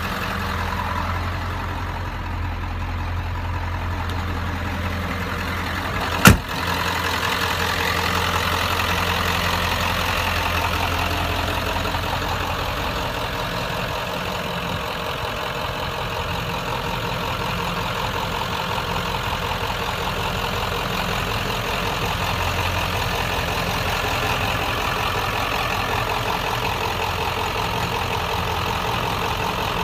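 Ford 7.3 L Power Stroke turbo-diesel V8 idling steadily, with a single sharp click about six seconds in.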